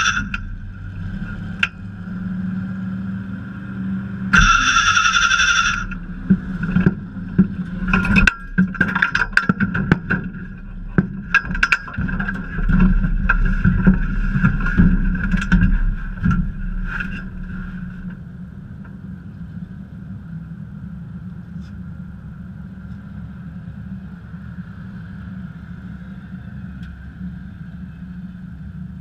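Dirt-track hobby stock race car engine running low and steady, heard from inside the car. Another car's engine goes by loudly and high-pitched about four seconds in. A string of sharp knocks and rattles follows over the next ten seconds, and then only a quieter, steady engine hum is left.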